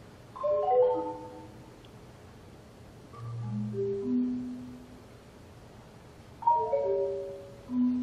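Solo concert marimba struck with mallets: a quick cluster of ringing notes, a pause, a few low notes that ring and fade, then another quick cluster and a single low note near the end.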